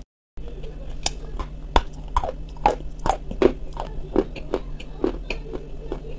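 Close-miked chewing of a soft cream biscuit: sharp mouth clicks and smacks, roughly two a second, after a brief gap of silence at the very start.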